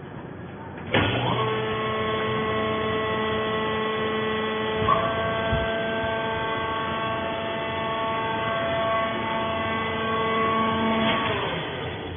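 Sisal fibre baler's motor and hydraulic pump running: a steady hum with several held tones starts abruptly about a second in, with a click near five seconds, and stops about eleven seconds in.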